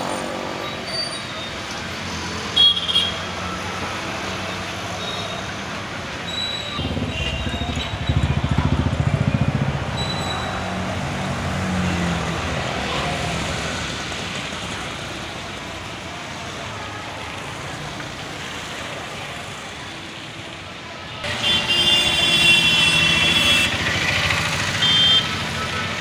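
Road traffic running steadily, with a heavy vehicle rumbling past about a third of the way through. Horns sound briefly early on and again in a louder stretch near the end.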